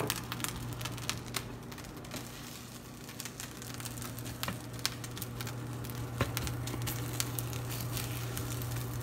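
Eggs frying in a nonstick pan, sizzling with scattered small crackles and pops over a steady low hum.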